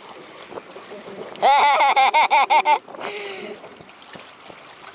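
A man's wordless voice rising and falling for about a second and a half, over the steady lapping of seawater at the rocks.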